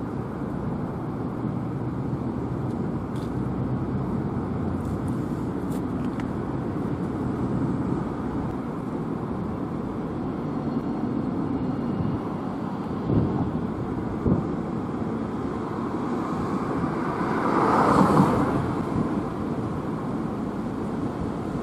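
Steady outdoor road-traffic noise, a continuous low rumble of passing vehicles. Two short knocks come in the middle, and near the end one louder vehicle swells past and fades.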